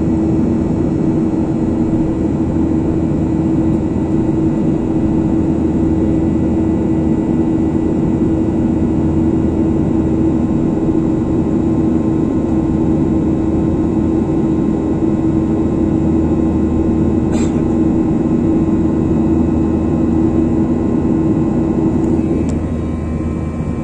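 Jet airliner engines heard from inside the cabin: a steady, loud drone with a constant hum. About 22 seconds in the hum drops away and the noise gets a little quieter, with a brief click a few seconds before.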